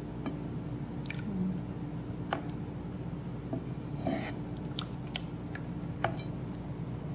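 Rice cake batter being poured and spooned out into glass bowls: soft wet pouring with scattered light clicks of utensil and glass, over a steady low hum.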